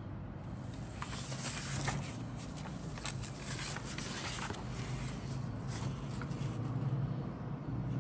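Paper instruction sheet rustling and crinkling as it is handled and slid across, loudest in the first half, over a steady low hum.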